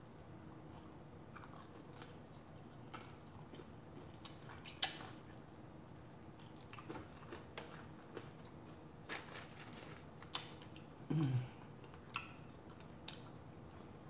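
A person eating crispy-fried lemon pepper chicken wings: chewing with scattered sharp crunches and mouth sounds, and a short low 'mm' about eleven seconds in.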